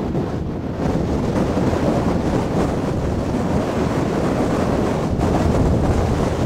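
Strong gusty wind buffeting the camera's microphone during a desert sand storm: a loud, continuous low rumble of wind noise, a little louder from about a second in.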